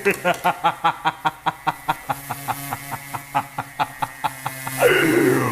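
A cartoon character's drawn-out laugh in quick pulses, about four or five a second, over a low sustained music tone, ending in a falling swoosh near the end.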